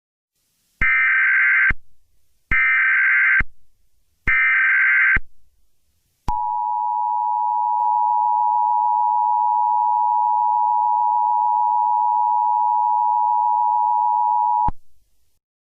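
Emergency Alert System SAME header: three short bursts of screeching digital data, each about a second long, followed about six seconds in by the EAS attention signal, a steady two-tone alarm held for about eight seconds before cutting off.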